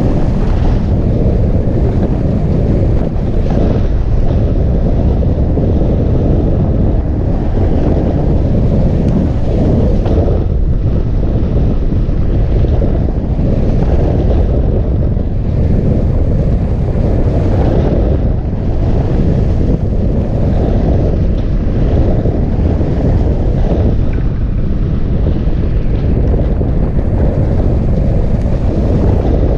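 Airflow of a hang glider in flight rushing over the glider-mounted camera's microphone: a loud, steady, low wind rumble.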